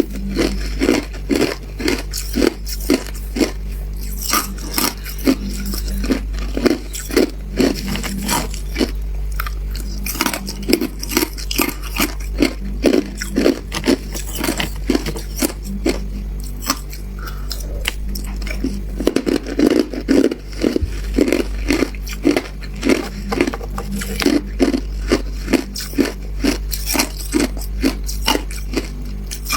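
Person biting and chewing ice close to the microphone: a steady run of crunches, about two a second, over a low steady hum.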